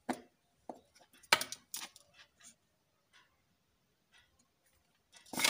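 A few short, light clicks and taps of a soldering iron and small torch parts being handled on a tabletop as the unsoldered wire is pulled free and the iron is set down, the loudest tap about a second and a half in.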